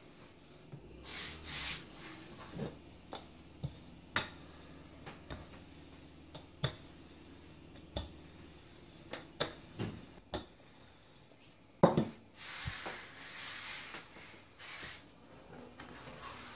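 Wooden rolling pin working a sheet of laminated croissant dough on a floured metal counter: scattered sharp knocks and clicks as the pin is handled and set against the counter, with stretches of rubbing and rustling as the dough is rolled and lifted. The loudest knock comes about two-thirds of the way through.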